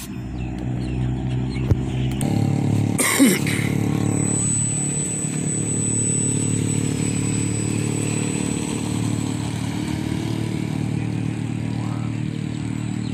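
Radio-controlled model airplane's engine and propeller running steadily, throttled up about two seconds in and carrying the plane into a take-off. A short loud rushing burst comes about three seconds in.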